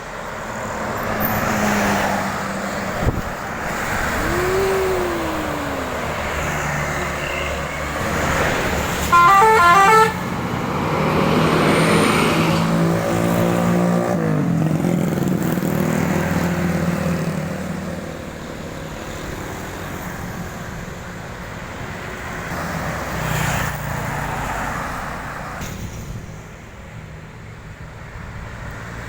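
Buses and traffic passing on a highway. About nine seconds in, a bus's multi-tone telolet horn plays a quick run of short stepped notes for about a second, the loudest sound. A large vehicle's engine then goes by, its pitch falling as it passes.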